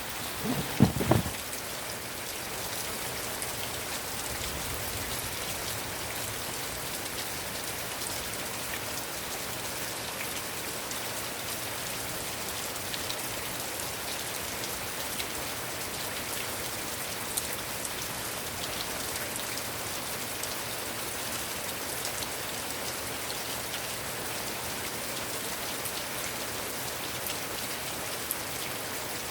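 Heavy rain falling in a steady, even hiss, with scattered sharp drip ticks. About a second in, a brief cluster of low knocks stands out as the loudest sound.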